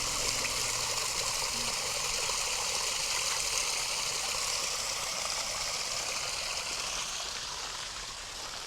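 Small waterfall on the River Stour: a steady rush of falling, splashing water, easing slightly near the end.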